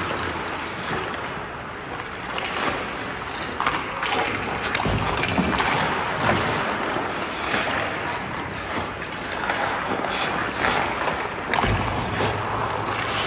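Ice-hockey skate blades scraping and carving across rink ice in irregular strokes, as a goaltender pushes and slides across his crease and a skater moves in.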